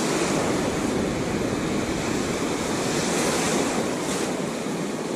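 Ocean surf washing onto a sandy beach, a steady rush of breaking waves, with wind buffeting the microphone.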